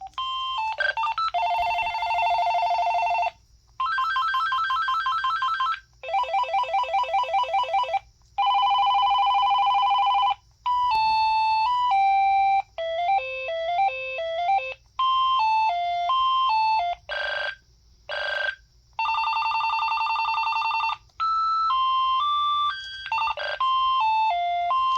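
AT&T DECT 6.0 cordless phone handset playing through its ringtones one after another at high volume: about ten different electronic trills and short melodies, each lasting a second or two, with brief gaps between them. The ringer distorts at this volume.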